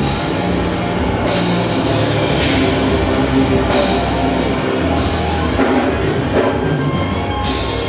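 Rock music with a drum kit and cymbal crashes.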